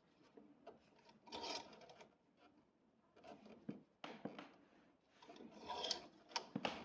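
Hand rubbing and scraping strokes in four short bursts, with small clicks and knocks between them, typical of a brake caliper slide pin being scrubbed clean.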